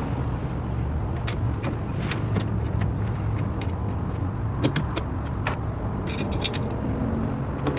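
Small metal clicks and taps of mount brackets and bolts being fitted onto slot nuts in a truck bed cargo rail, with a brief jingle of hardware near the end. Under it runs a steady low vehicle-like rumble.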